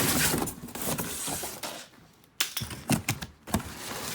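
Cardboard shipping box and its packing being handled and pulled open: a stretch of scraping and rustling, then a few sharp clicks and knocks past the middle.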